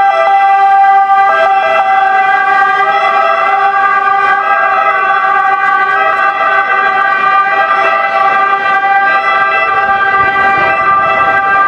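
Italian ambulance siren sounding loudly, a held pitched tone rich in overtones with a second tone cutting in and out, over street noise.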